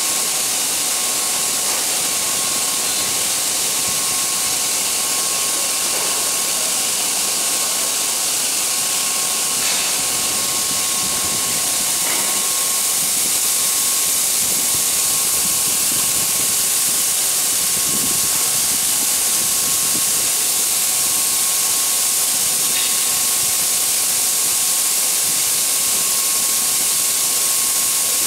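A steady loud hiss with a thin steady whine running through it, from the equipment at a grain train's unloading pit. A few faint knocks come now and then as the wagon's discharge door is worked.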